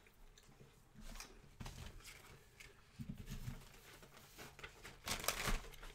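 Snack packaging and paper being handled: scattered rustles and crinkles, with a louder crinkling burst about five seconds in.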